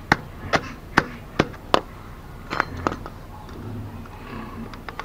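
Sharp clicks and snaps of bamboo strips being worked with pliers at the rim of a woven bamboo basket. About five in the first two seconds, two more just before three seconds, then quieter.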